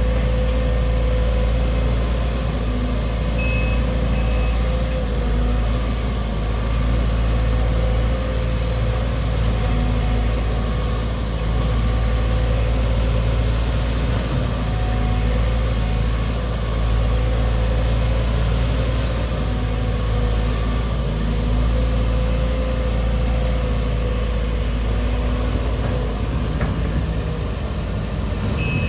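Heavy diesel engine of a Sumitomo SH210-6 hydraulic excavator running steadily, with a few short high alarm beeps about three and a half seconds in.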